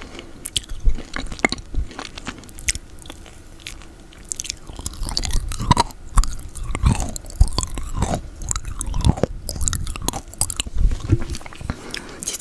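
Close-miked wet mouth sounds from chewing sticky peanut butter: irregular tongue clicks, lip smacks and sticky chewing.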